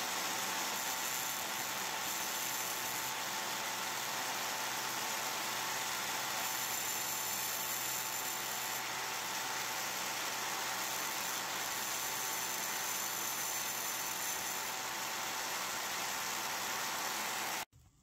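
Angle grinder running steadily while the metal spade terminal of a microwave door interlock switch is held against the edge of its spinning disc, grinding the terminal narrower. The even, steady noise cuts off suddenly near the end.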